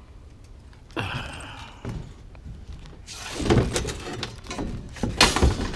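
Metal bed frame being handled and loaded: scraping and clanking, with the loudest bang near the end.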